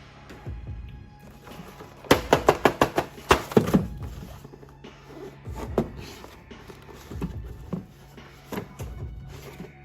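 Background music with a quick run of sharp knocks about two seconds in, roughly seven a second for two seconds, then scattered single thuds.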